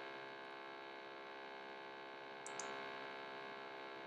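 Steady low electrical hum, with a couple of faint clicks about two and a half seconds in.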